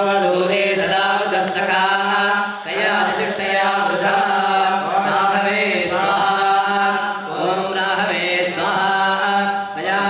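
Male Hindu priests chanting Vedic mantras, a continuous recitation on a steady pitch in long phrases broken by brief pauses.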